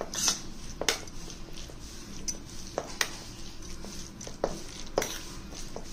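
A metal spoon stirring hung curd and chopped vegetables in a stainless steel bowl, clinking sharply and irregularly against the bowl's side several times.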